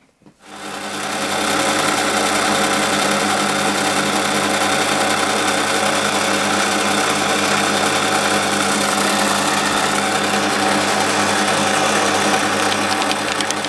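Small metalworking lathe starting up about half a second in and running at steady speed, its motor and spinning collet chuck giving a constant whir with a hum, while a facing cut squares off the shoulder on a steel bar.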